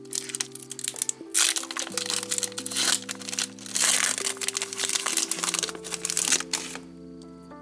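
Foil wrapper of a Pokémon booster pack crinkling and crackling as it is torn open and handled, over background music; the crinkling starts about a second in and stops shortly before the end.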